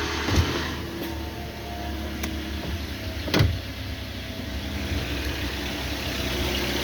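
2015 Toyota Corolla's four-cylinder engine idling steadily just after starting on fresh oil and a new filter. Two sharp knocks sound over it, one near the start and a louder one about three seconds later.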